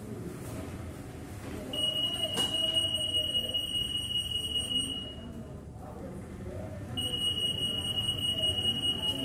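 Xanguard MAX EAS RF security gate alarm: a steady high-pitched electronic tone. It sounds for about three seconds, stops for about two, then starts again, which is the gate's alert that an RF security tag has passed through.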